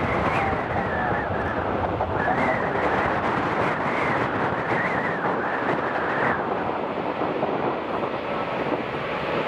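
Embraer regional jet's two rear-mounted turbofans running at high power at the start of the takeoff roll, with a faint wavering whine that fades about six seconds in, mixed with strong wind buffeting the microphone.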